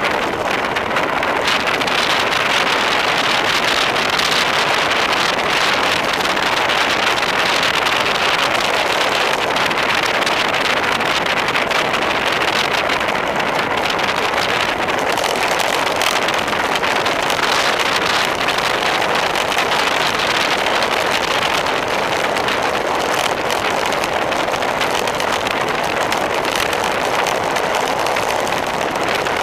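Steady rushing wind on the microphone of a camera fixed to a road bike's handlebar, riding downhill at speed.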